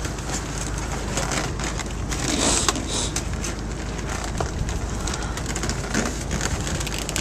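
Steel baling wires being handled and twisted on a mill-size baler: irregular metallic clicks, scrapes and crackles over a steady low hum.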